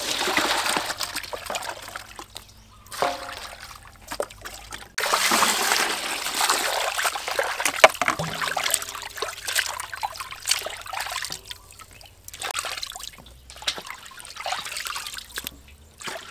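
Water splashing and sloshing in a stainless steel basin as raw chicken wings are washed by hand, with water poured in from a plastic scoop at the start. The splashing comes in spells with short pauses between, and there is one sharp knock about halfway through.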